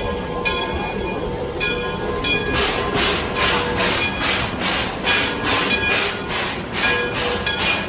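Train running: repeated ringing tones at several pitches, then from about two and a half seconds in a rhythmic chuffing at about two and a half beats a second.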